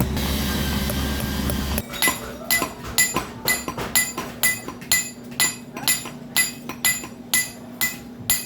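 A steady machine-like noise with a low hum stops abruptly about two seconds in. Then a hammer strikes metal in a steady rhythm, about two to three blows a second, each blow with a bright metallic ring, as copper is hammered into shape.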